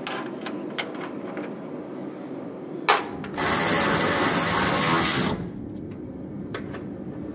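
Cordless electric ratchet spinning a hood hinge bolt in, running for about two seconds near the middle and stopping abruptly, with a sharp click just before it and small clinks of hardware around it.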